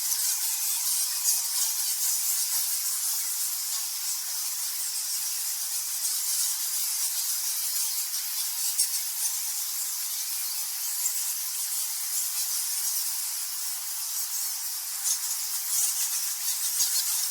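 A colony of bats squeaking and chittering, a dense continuous twitter of many short high-pitched calls.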